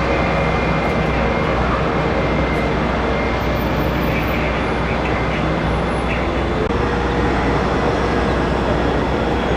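Jet airliner engines running at take-off power: a loud, steady rush with thin whining tones on top. The whine changes pitch about seven seconds in.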